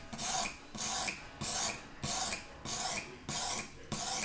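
Whetstone on a guided fixed-angle knife sharpener stroked along a kitchen knife's steel edge, making a rasping hiss. The strokes are even, nearly two a second.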